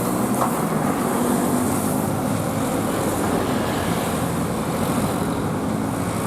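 Steady road traffic noise with a vehicle engine running.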